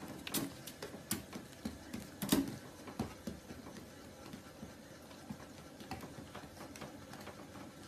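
Husky puppy's paws and claws tapping and clicking irregularly on a hard deck as it hops up toward a treat held above it, with the sharpest tap about two and a half seconds in.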